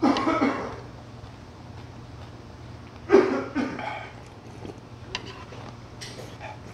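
A man coughing twice, about three seconds apart, each loud cough fading within a second, over a steady low hum.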